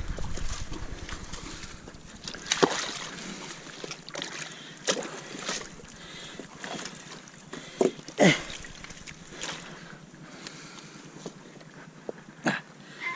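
Wet rocks and seaweed being handled and shifted in shallow tidal water, with sloshing and several sharp knocks of stone, the loudest about eight seconds in.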